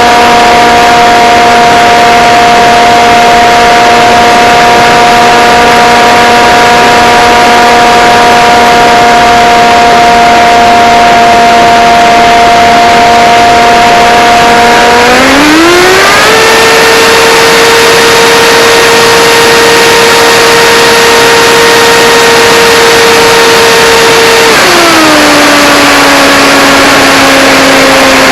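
Blade Theory Type W FPV quadcopter's brushless motors and propellers whining steadily in flight. About halfway through the pitch rises sharply as the throttle goes up, holds high for about eight seconds, then falls back.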